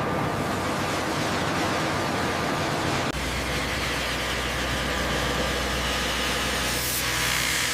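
Steady mechanical rumble with a wide hiss; about three seconds in it changes abruptly and a strong, steady low hum sets in.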